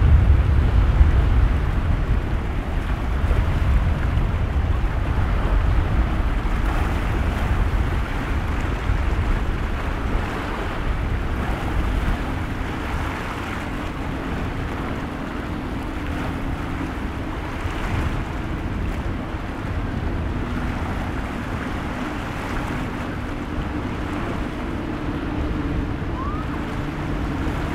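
Wind buffeting the microphone over the rush of waves and surf, strongest at the start. From about twelve seconds in, a boat's engines add a steady drone.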